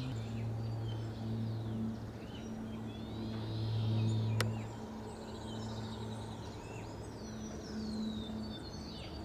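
Several birds chirping and calling in a reed marsh, short rising and falling notes overlapping, over a steady low hum. A single sharp click about four and a half seconds in.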